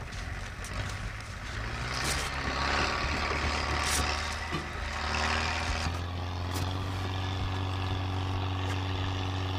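An engine running steadily, heard as a low hum. A rushing noise with a few sharp clicks lies over it from about two to six seconds in.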